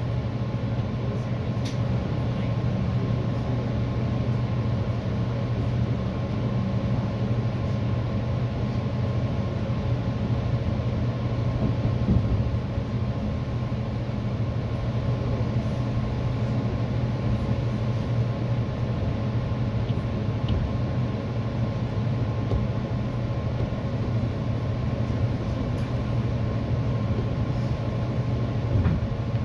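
EXO commuter train heard from inside the passenger coach while running: a steady low rumble of wheels on rails, with a faint steady hum and a few light clicks.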